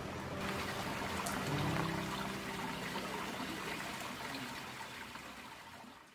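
Water trickling steadily, gradually fading out toward the end.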